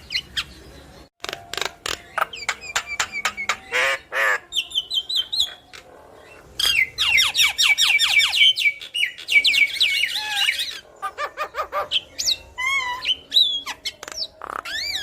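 Javan myna (jalak kebo) calling: runs of sharp clicks and harsh squawks mixed with rapid chattering chirps, with a brief lull about six seconds in.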